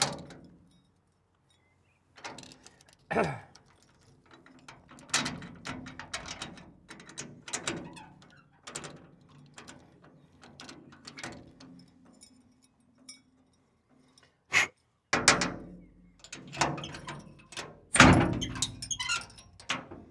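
A key rattling and turning in a sticking padlock, with the padlock and its hasp clanking and knocking against a steel cellar door in repeated irregular bursts, loudest near the end. The owner suspects the lock has jammed.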